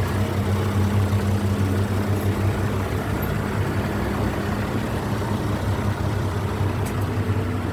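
A large engine idling steadily, with an even low running note that does not change.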